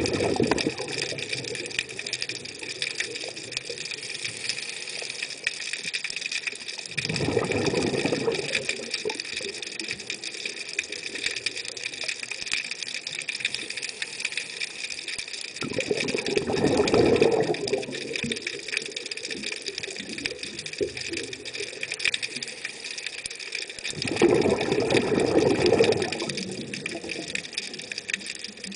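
Exhaled bubbles from a scuba diver's regulator rushing past an underwater camera, in bursts of about two seconds every eight seconds or so, over a steady high hiss.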